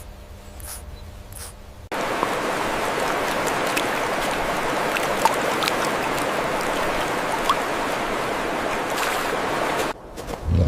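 A steady rushing noise, even and without pitch, that starts abruptly about two seconds in and stops abruptly near the end, with a few faint ticks through it; before it, quieter scratchy ticking.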